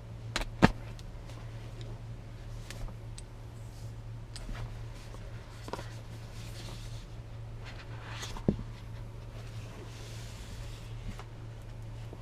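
Box and packaging being handled: two sharp knocks, one just under a second in and one about eight and a half seconds in, with soft rustling and sliding between them, over a steady low hum.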